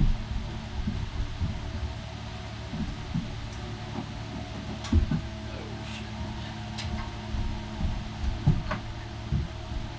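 Metal engine mounts knocking and clunking as they are tossed one by one into a parts-cleaning barrel, the loudest knock about five seconds in, over a steady low hum.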